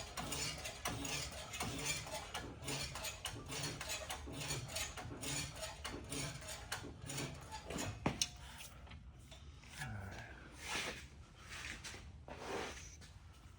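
Metal parts and hand tools clinking and rattling during suspension work on a Jeep, with a sharp click about eight seconds in and a couple of short rushing sounds near the end.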